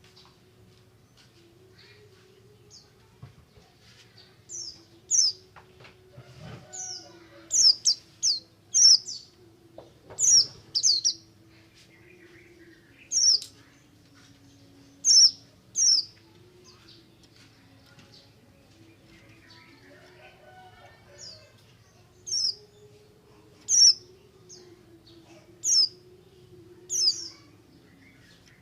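White-eye (pleci) giving short, sharp, high chirps, singly and in quick runs of two or three, every one to three seconds: the 'buxtomi ngalas' song used to set other white-eyes singing. A faint steady low hum runs beneath.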